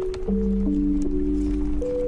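Gentle instrumental background music: held notes over a low bass note, moving to new notes every half-second or so.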